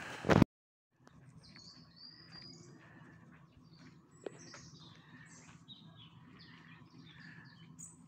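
Small birds chirping, a scatter of short high calls over faint background noise. At the very start there is a brief loud burst of noise that cuts off abruptly into a moment of silence.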